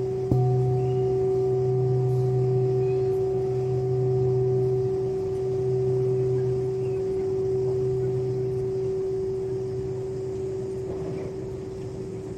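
A singing bowl is struck about a third of a second in and rings on in a steady, sustained tone that slowly fades near the end.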